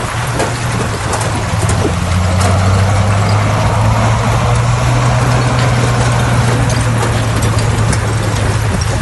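Crawler bulldozer's diesel engine running at a steady, low hum, with scattered clanks and clicks.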